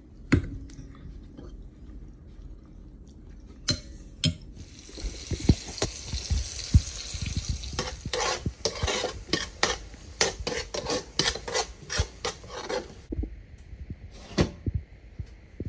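A utensil stirring mushrooms in a frying pan, scraping and clinking against the pan in quick strokes over a steady hiss from the pan.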